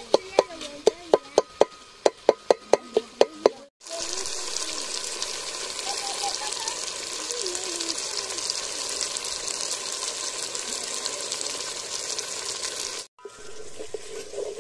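Sharp knocks, about four a second, with voices behind. After an abrupt cut comes a steady high hiss of food frying in a pan for about nine seconds, which cuts off near the end.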